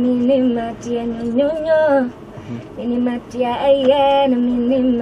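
A woman singing unaccompanied into a microphone: two melodic phrases of held, gliding notes, with a short pause about two seconds in.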